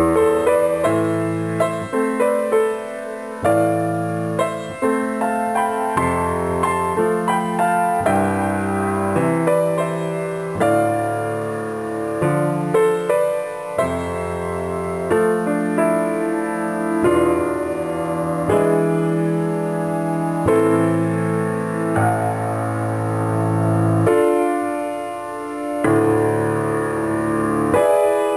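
Solo piano music: slow notes and chords, changing about once a second.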